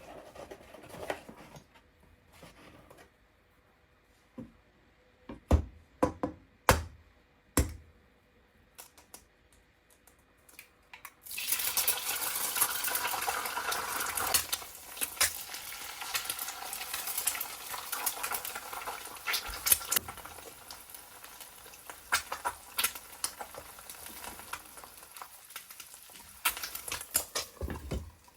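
Kitchen clatter first: a few sharp knocks of pans and utensils. About eleven seconds in, loud frying sizzle starts suddenly in a pan. Utensil clicks of stirring run through it as the sizzle slowly fades.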